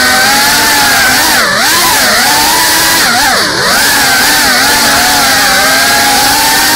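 GEPRC CineLog 35 cinewhoop's brushless motors and ducted propellers whining loudly, the pitch dropping sharply and climbing back twice, about a second and a half in and again about three and a half seconds in, as motor speed is cut and brought back up.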